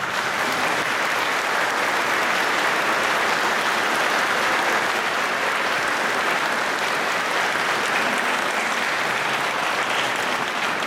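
Large church congregation applauding steadily.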